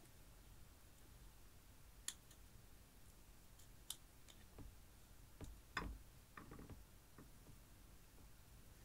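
Faint clicks and scraping of a plastic spatula digging pressed eyeshadow out of a small plastic compact: single clicks about two and four seconds in, and a louder cluster of scrapes and clicks a little past the middle.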